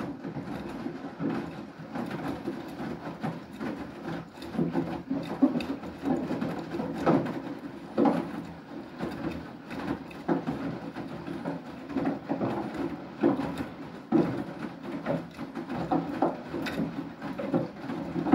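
Beko WTK104121W front-loading washing machine in its main wash. The drum is turning with wet clothes tumbling and water sloshing, with irregular soft thuds of the load dropping.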